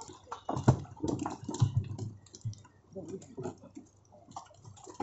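Irregular wet slaps, splashes and clicks of live catfish flopping in shallow muddy water and being handled, with knocks of plastic containers.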